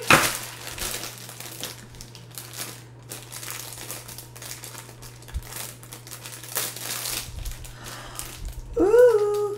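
Shiny pink doll-accessory wrappers being pulled open and crumpled by hand: an irregular run of crinkles and crackles. A brief sound from a voice comes near the end.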